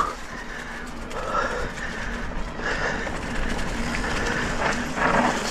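E-mountain bike riding a dirt trail: tyre and trail noise with the faint steady hum of the assist motor, and the rider breathing hard about every second and a half on a tough technical section.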